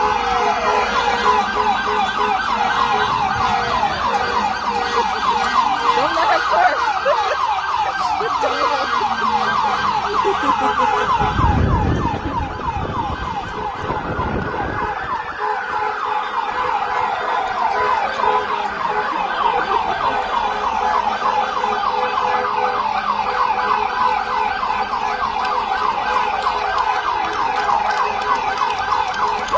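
Several emergency vehicle sirens sounding together. Slow rising and falling wails overlap a fast, continuous warbling yelp.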